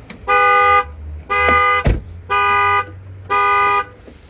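2016 Dodge Dart's anti-theft alarm sounding the car horn in steady pulses, four blasts about one a second. The car is not yet paired with the newly cut key. A sharp knock comes about two seconds in.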